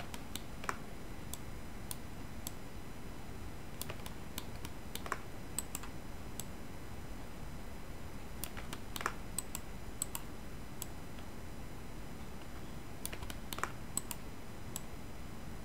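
Scattered, irregular clicks of a computer keyboard and mouse being worked, a few at a time with pauses between, over a steady low hiss.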